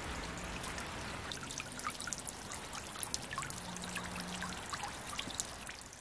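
Water trickling steadily, with many small drips and ticks, fading out near the end.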